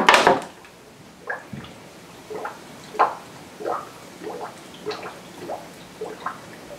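Water poured into a funnel on a watercooling loop's fill tube, a loud splash at the start, then a run of short gurgling glugs as air bubbles up through the funnel while the water drains into the reservoir.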